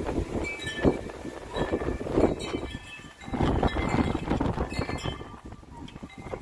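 A wind chime clinking and ringing in strong, gusty wind, its metal tones scattered over the rush of the wind, which swells in two strong gusts.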